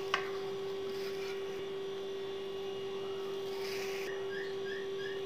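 A steady background hum on a single tone, with one sharp click just after the start. Faint quick chirps, about three a second, begin near the end.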